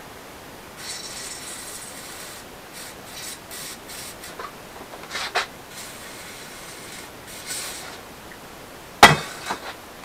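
Aerosol spray can of penetrating lubricant hissing in several short, uneven spurts as it runs empty. A single sharp clank near the end.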